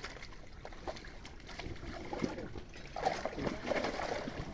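Faint trickling and lapping of pond water, with a few small knocks.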